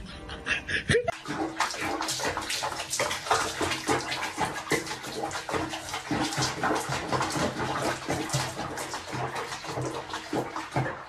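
Water splashing and sloshing in a small basin of foamy bathwater while a cat is bathed, with many irregular small splashes.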